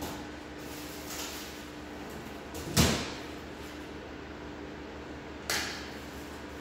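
Two sudden knocks about three seconds apart, the first much louder, over a steady low hum.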